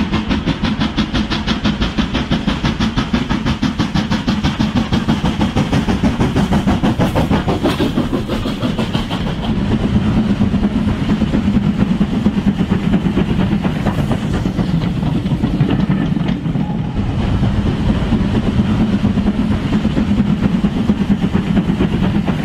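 Steam locomotive chuffing at a quick, even beat over a steady low rumble, like a steam engine working a train.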